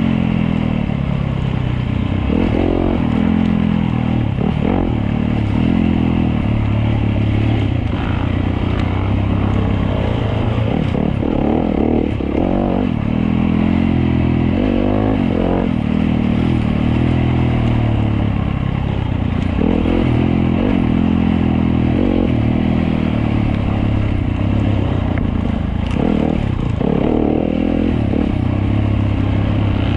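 Off-road dirt bike engine heard on board, revving up and dropping back again and again as the throttle is worked through the twisty trail, with occasional knocks and rattles from the bike over rough ground.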